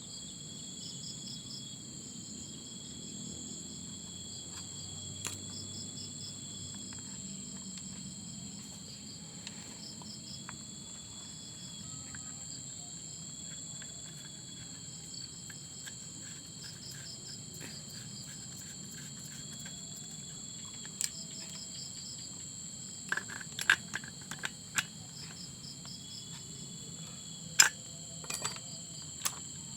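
Insects chirping steadily, with high continuous buzzing and repeated trills, over a faint low rumble. In the second half come a handful of sharp clicks and knocks, the loudest sounds.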